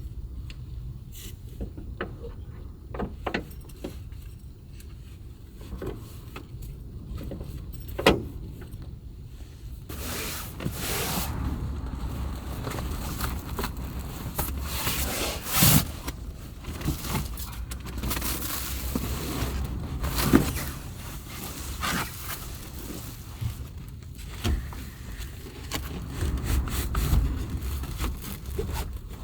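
Heavy rain and gusting wind beating on a Subaru Sambar kei van, heard from inside the cabin. The sound gets heavier and louder about ten seconds in, with a low rumble under a steady hiss. A few sharp knocks and clicks stand out, the loudest about eight, sixteen and twenty seconds in.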